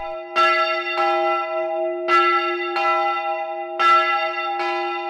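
Church bell struck repeatedly, about once a second at uneven spacing, each stroke ringing on over a steady sustained hum.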